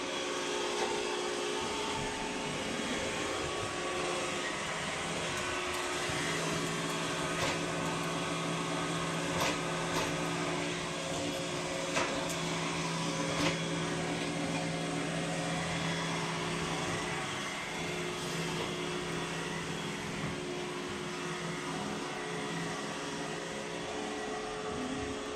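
Front-loading washing machine on a wash cycle, its drum turning a load of wet dark clothes with a steady motor hum and a few light clicks. A lower hum comes in about six seconds in and fades out around seventeen seconds.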